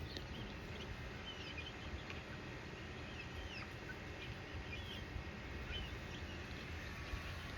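Faint, scattered bird chirps, short and high, over a steady low background rumble.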